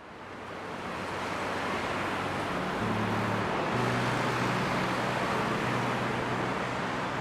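Busy street traffic noise fading in and holding as a steady wash of passing cars. Low, quiet music notes enter about three seconds in.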